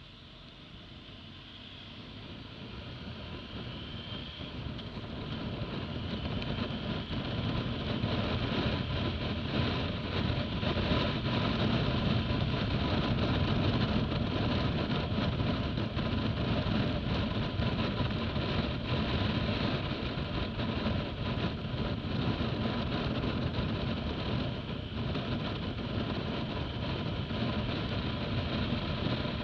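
Motorcycle engine and wind rush heard from the rider's own bike as it accelerates from about 25 km/h to road speed. The sound grows louder over the first several seconds, then holds steady.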